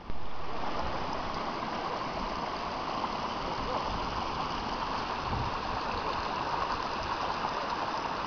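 Shallow mountain stream flowing over rocks: a steady, even rushing and babbling of water.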